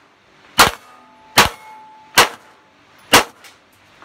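Glock 17 9mm pistol fired four times at an even pace, a shot about every 0.8 seconds, with faint ringing from steel plate targets after the hits.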